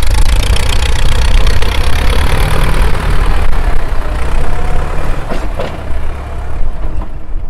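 Ford 6610 tractor's four-cylinder diesel engine running through a loud open exhaust pipe: a steady, very loud heavy drone.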